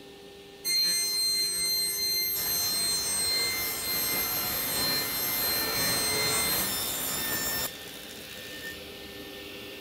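Sliding table of a Martin sliding table saw rolling along its rails as it is pushed forward with a plywood sled on it: a steady rolling and rubbing sound that starts suddenly about a second in and stops abruptly near the end.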